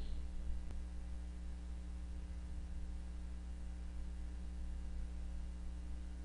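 Steady electrical mains hum with a faint hiss, and a single faint click just under a second in.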